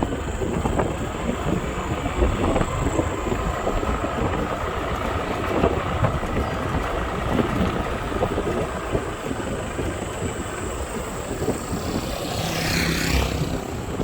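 A vehicle running steadily, with wind rumbling on the microphone.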